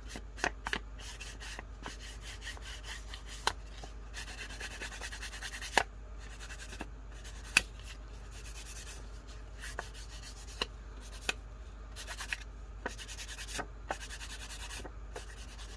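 A Distress Ink pad being rubbed along the edges of paper: a soft, continuous scratchy rubbing with sharp taps now and then.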